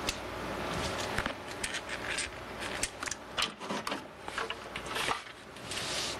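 Experimental noise track: irregular clicks, clatter and crackle over a steady low hum, with a hissing swell near the end.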